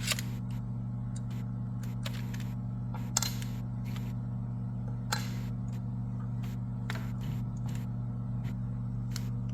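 Scattered sharp clicks and snaps from a Ryobi P317 18V crown stapler's magazine and latch being worked while staples are loaded, the loudest about three seconds in. A steady low electrical hum runs underneath.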